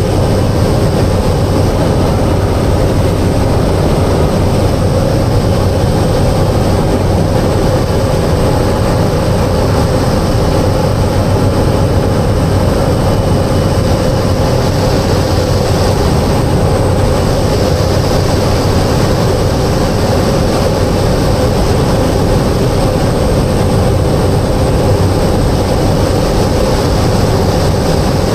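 Cessna Caravan's single PT6A turboprop engine and propeller droning steadily, heard from inside the cockpit, with a constant low hum and a high whine that stay at one pitch throughout.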